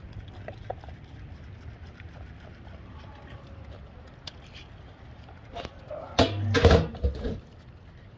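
Animal cries over a low steady rumble, with a loud burst of calls from about six to seven and a half seconds in.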